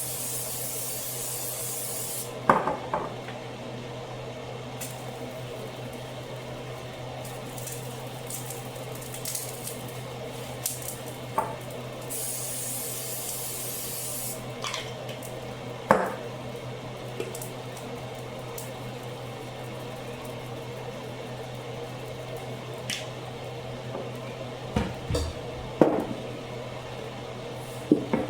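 Pots, dishes and utensils being handled: scattered clinks and knocks over a steady low hum, with two hissing stretches of about two seconds each, one at the start and one about twelve seconds in.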